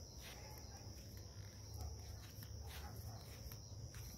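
Faint outdoor evening ambience: a steady high-pitched trill of crickets over a low rumble, with a few faint clicks.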